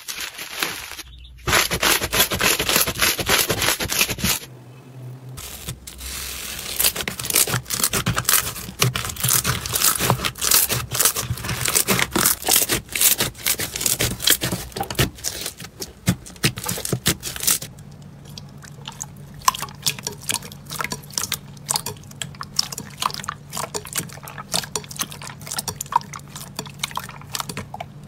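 Slime being handled by hand, pressed, stretched and squished: dense crackling and popping for most of the stretch, turning to sparser wet pops in the last third.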